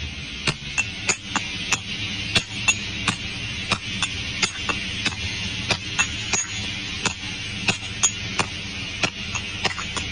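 Close-miked ASMR trigger sounds: a run of sharp taps or crunches, about three a second at slightly uneven spacing, over a steady high hiss.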